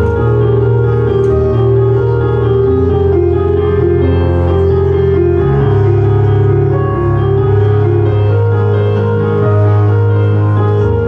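Slow instrumental music of sustained chords over long-held bass notes that change every second or two.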